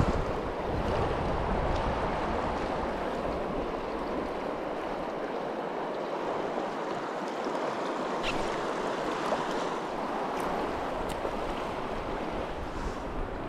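Steady rush of river water, with a few faint ticks in the second half.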